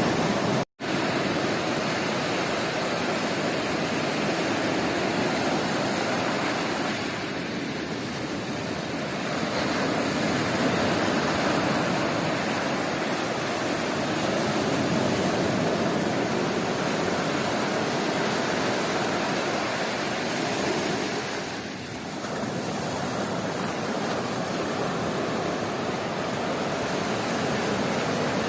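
Sea surf washing onto a beach, a steady rushing noise that eases a little about a quarter of the way in and again about three quarters through. The sound cuts out for a split second near the start.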